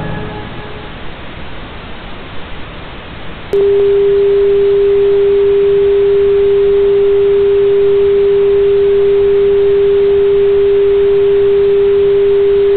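Broadcast test tone over colour bars, the signal that programming has ended and the station is off the air. A hiss comes first, as the last of the music dies away. About three and a half seconds in, a single steady tone starts abruptly and holds unchanged.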